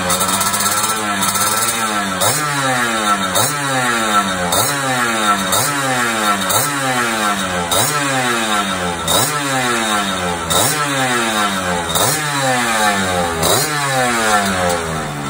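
Suzuki V100 100cc two-stroke scooter engine being blipped on the throttle during carburettor tuning. It revs up sharply and falls back about once a second, over and over.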